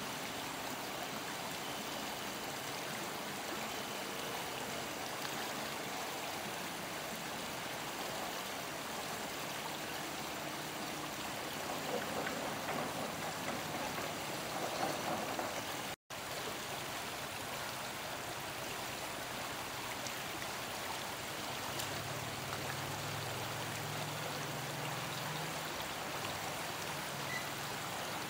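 Shallow river water running steadily, a continuous even rush of flowing water, with a brief cut-out about halfway through.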